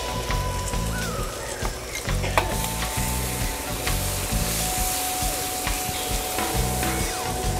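Garlic and leeks sizzling in hot oil with oyster sauce and mushroom stock, stirred in the pan, with scattered clicks of the utensil against the pan. A steady beat of background music runs underneath.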